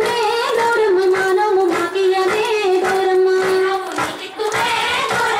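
Female voices singing a Bathukamma folk song: one melody line with long held notes, over a steady beat.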